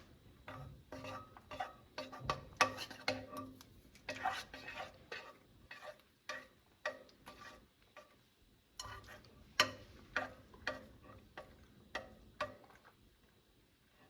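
A utensil stirring a thick mixture of melting chocolate chips and sweetened condensed milk in a bowl, with irregular scrapes and taps against the bowl a few times a second; it stops shortly before the end.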